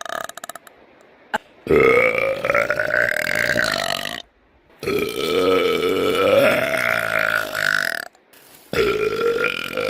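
A woman belching: three long, drawn-out burps with a clear pitch, each two to three seconds long, separated by short pauses. The last one starts near the end. A brief crackle of short clicks comes right at the start.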